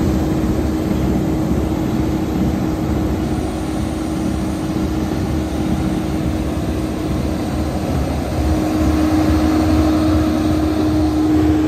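Case IH 2388 combine running as it drives past: its six-cylinder diesel engine and machinery make a loud, steady rumble with a constant hum on top, a little louder for a few seconds near the end.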